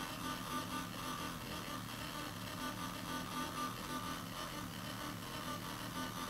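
Circuit-bent electronic noise played through a cluster of small loudspeakers: a steady buzzing drone over hiss, with a fast jittery flutter in the low end.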